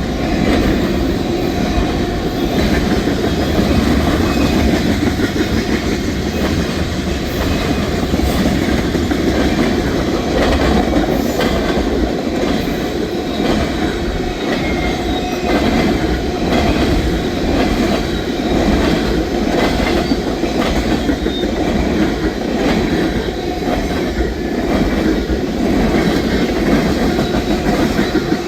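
Train cars rolling past, a steady rumble with the steel wheels clicking over the rail joints.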